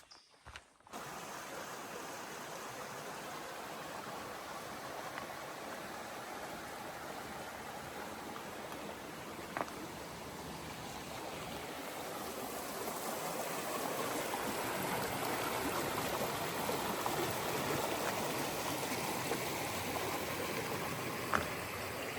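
Rushing water of a stream on a wet mountain trail, a steady hiss that begins suddenly about a second in and grows louder from about halfway through.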